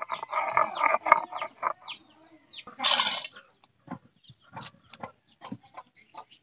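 Chickens clucking in a quick run of calls over the first two seconds, with a loud half-second rasp about three seconds in. Scattered light knocks and scrapes follow as tomato paste is worked by hand on a stone grinding slab (sil-nora).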